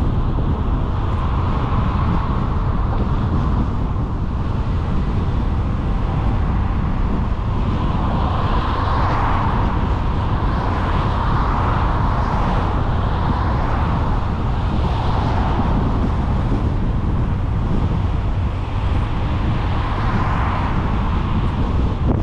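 Car driving along a road: a steady heavy low rumble of wind and road noise, with a higher tyre hiss that swells and fades several times.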